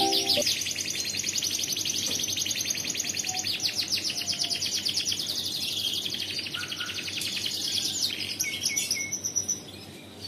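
Domestic canary singing a long song of fast rolling trills, then breaking into a few scattered notes and falling quiet near the end.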